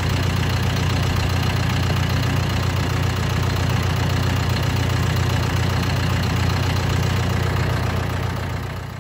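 Tractor engine idling steadily, heard up close from the machine itself, with a strong low hum.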